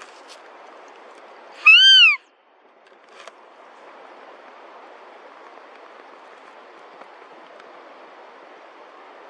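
A deer call blown to draw in a sambar hind: one short, high bleat that rises and falls in pitch, loud, about two seconds in. A steady faint hiss runs underneath.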